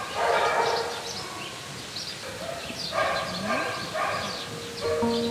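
Chow Chow mix dog barking a few times: one bark right at the start, then two close together about three seconds in.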